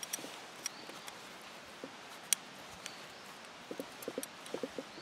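Scissors snipping through a small piece of leather: scattered short clicks, with a quick run of snips near the end, over a steady outdoor hiss.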